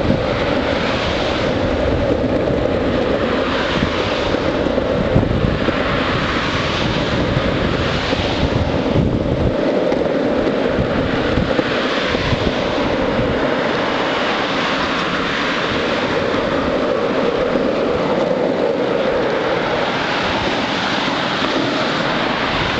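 Longboard wheels rolling fast on asphalt, a steady roll noise, with wind buffeting the microphone, heaviest in the first half and easing after about ten seconds.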